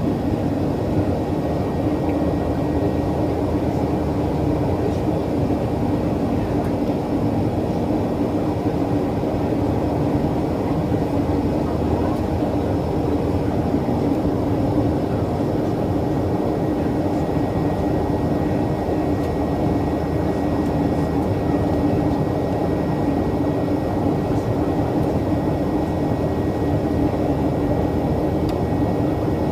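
Steady jet engine and airflow roar of a Boeing 737-800 with CFM56-7B turbofans, heard inside the passenger cabin, with a steady low hum and a faint, thin high whine above it.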